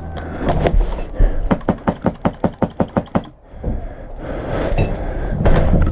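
Airsoft gun firing a rapid string of about a dozen sharp shots, roughly five or six a second, for about two seconds. After the shots comes a stretch of noisy rumble.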